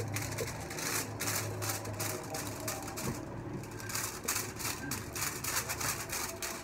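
Aluminium highlight foils rustling and crinkling in quick irregular bursts as they are handled and folded against the hair, with a tint brush working on them. A steady low hum stops about two seconds in.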